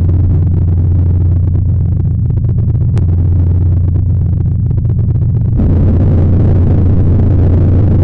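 Fire alarm horn sounding continuously: a loud, steady, low-pitched buzz.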